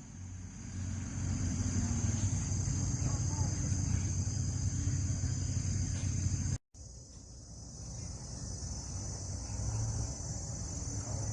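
Steady chorus of insects shrilling, with a low rumble of wind or handling noise beneath it. The sound drops out for a moment about two-thirds of the way through.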